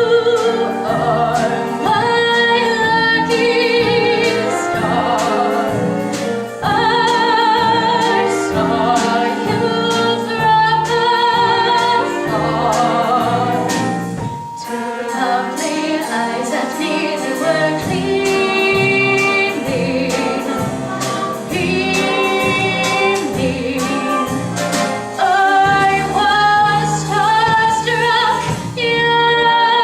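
A musical-theatre number: several voices singing with vibrato over instrumental accompaniment with a bass line.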